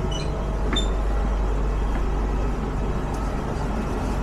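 Steady low mechanical rumble with a hiss over it, and two brief high chime-like tones in the first second.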